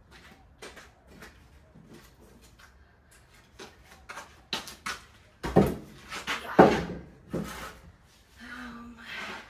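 Timber pieces knocking and scraping as they are handled and fitted, with two loud wooden thuds a little past halfway.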